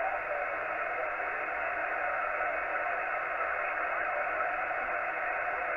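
Yaesu FT-847 transceiver's receiver giving a steady hiss of band noise and static on the 40-metre band, with no station transmitting.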